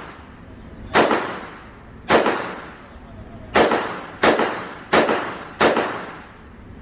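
Six single gunshots from a firearm at a shooting range, each followed by a fading tail. Two come about a second apart, then after a short pause four more come faster, roughly two-thirds of a second apart.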